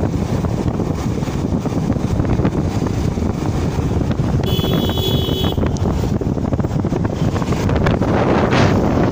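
Wind buffeting the microphone on a moving motorcycle, a loud steady rush over the low rumble of engine and road. A brief high steady tone sounds for about a second midway.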